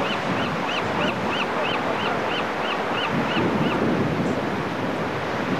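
Ocean surf breaking on rocks, with wind buffeting the microphone. Over it, a run of about a dozen short high chirps, about three a second, stops a little past halfway.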